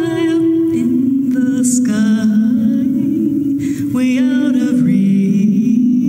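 Music: a slow song, a singer holding long notes with vibrato over a sustained low accompaniment.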